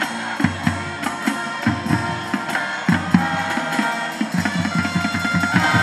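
Marching band playing: the drumline beats out a steady rhythm on bass drums and snares while the brass plays over it, with a held note coming in near the end.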